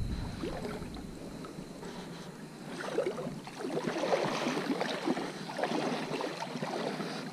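Shallow seawater sloshing and splashing as someone wades through it, quiet at first and busier from about three seconds in.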